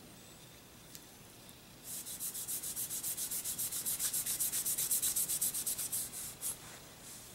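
Cotton pad rubbed quickly back and forth over a Glock 17's steel slide, wiping excess color-fill paint off the engraved markings. The rubbing starts about two seconds in, runs at about eight strokes a second, and stops about six seconds in, followed by a few single strokes.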